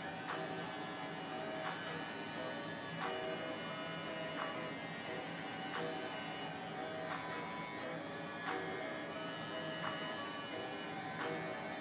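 Corded electric pet clipper running with a steady buzz as it shaves through a dog's coat.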